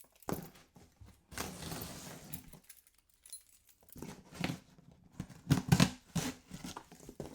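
Cardboard shipping box being opened by hand: a tear of packing tape lasting about a second, then a series of knocks and rustles of cardboard flaps near the end.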